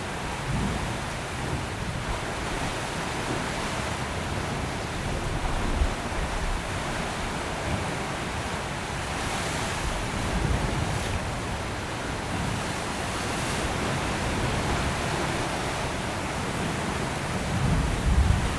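Ocean surf washing around tidepools: a steady rush of water, with wind buffeting the microphone in low thumps a few times, strongest near the end.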